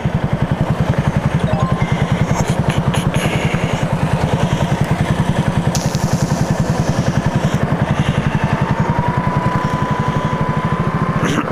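Italika 250Z motorcycle engine running at a steady speed while riding, its exhaust pulsing evenly and rapidly with no revving up or down.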